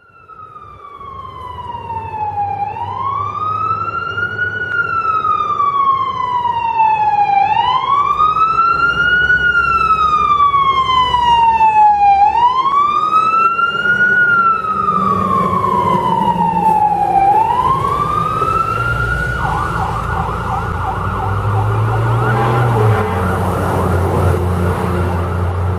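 Fire truck siren sounding a slow wail, rising and falling four times about every five seconds, then switching abruptly to a fast yelp about 19 seconds in. A heavy engine rumbles underneath as the apparatus passes.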